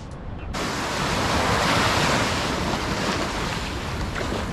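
Sea waves washing onto the shore, with wind on the microphone. It starts abruptly about half a second in and is loudest around two seconds in.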